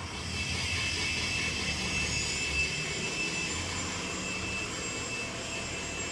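Steady machine drone: an even rushing noise with a thin, steady high whine over it.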